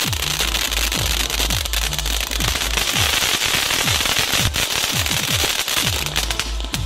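Ground fountain firework spraying sparks with a steady hiss and crackle, the crackle sharper near the end, under loud electronic music with a deep bass line and a steady beat of falling-pitch bass kicks.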